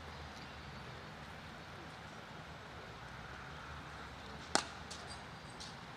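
A single sharp crack of a cricket bat hitting a leather ball about four and a half seconds in, followed by two fainter clicks, over a steady low background noise.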